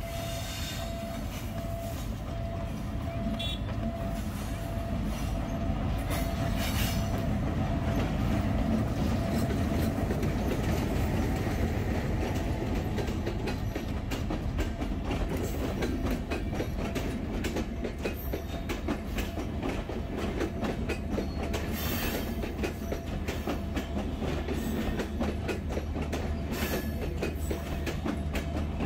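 Broad-gauge diesel-hauled passenger train, the Maitree Express, passing close by. The rumble grows louder over the first several seconds as the locomotive arrives, then holds steady as the coaches roll past, wheels clicking over the rail joints.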